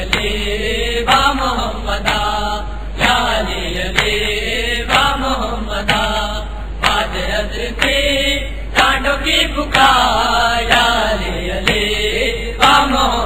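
Voices chanting an Urdu noha, a Shia mourning lament, in a steady rhythm with a new phrase about once a second.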